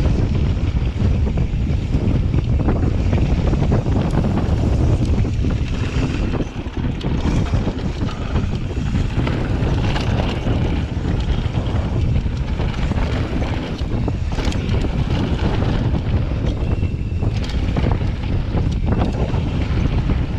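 Wind buffeting the camera microphone during a fast mountain-bike descent, with the tyres of a Santa Cruz Nomad rumbling over a dirt trail and scattered knocks and rattles as the bike hits bumps.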